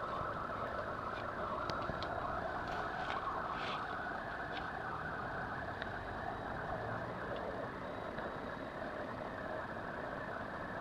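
A steady mechanical drone, with faint scattered small clicks as the gear-oil drain screw on an outboard motor's lower unit is worked loose by hand.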